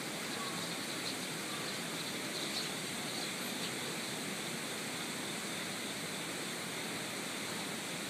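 Steady rushing of a valley stream after rain, with a few faint high bird chirps over it in the first half.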